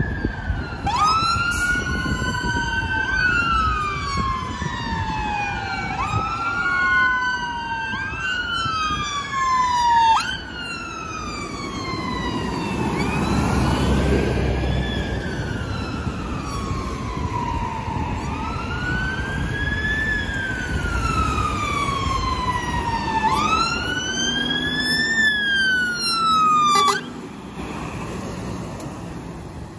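Sirens on fire engines going to an emergency call, wailing in overlapping rising-and-falling sweeps, over vehicle and road noise. A single slower wail carries the middle stretch, and the sirens cut off suddenly near the end while a fire engine is passing.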